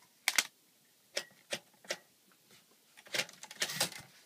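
1946 Smith-Corona Silent typewriter clicking: a few separate sharp clacks, then a quicker run of clacks about three seconds in.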